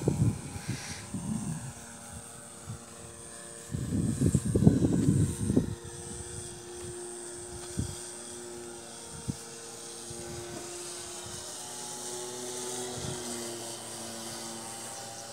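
Electric radio-controlled model airplane flying overhead: a steady motor and propeller whine that drifts slightly in pitch. Wind buffets the microphone at the start and again about four seconds in.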